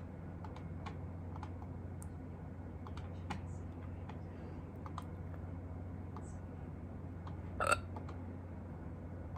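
A single short hiccup about three-quarters of the way through, the loudest sound, over a steady low hum with scattered faint clicks.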